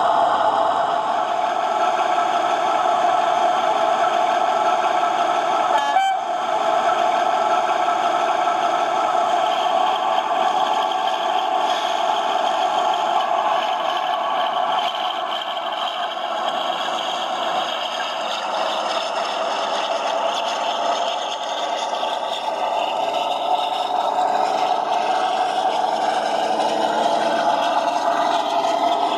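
OO gauge model diesel train running on the layout: a steady drone from the running train, with a single sharp click about six seconds in.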